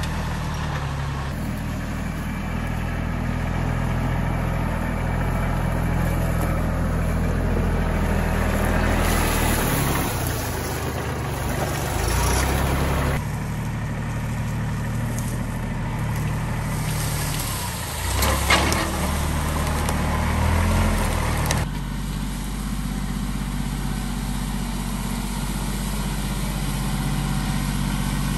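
Kubota compact tractor's diesel engine running steadily as the tractor drives along a woodland trail, dragging a rear box blade through leaves and debris. A few sharp knocks come about two-thirds of the way through.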